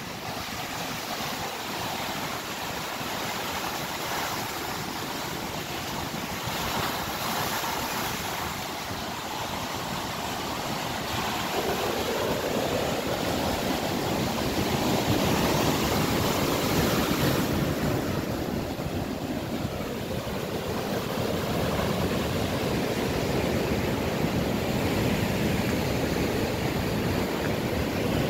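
Rough sea surf in a storm: waves breaking and foamy water rushing up the shore in a steady roar. The rush grows louder and deeper a little under halfway through.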